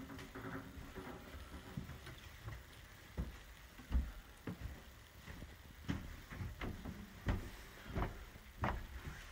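Footsteps climbing a carpeted wooden staircase: soft, dull thuds about every two-thirds of a second, starting about three seconds in.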